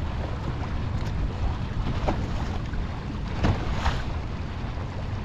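Wind buffeting the microphone as a steady low rumble over choppy water, with a few short ticks about two and three and a half seconds in.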